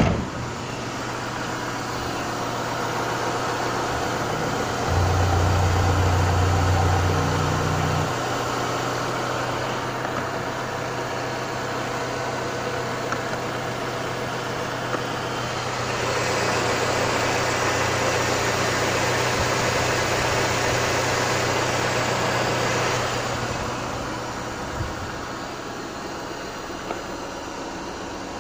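Renault Laguna II's 2.0-litre F4R inline-four petrol engine idling steadily. It grows louder with a deeper hum for a few seconds about five seconds in, and again with a more hissing tone for several seconds in the middle.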